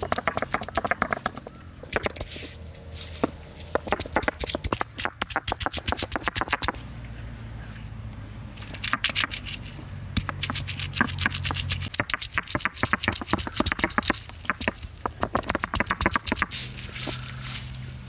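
Stone roller grinding ginger on an ammi (flat stone grinding slab): dense runs of crunching, scraping clicks as the roller is rocked back and forth over the paste.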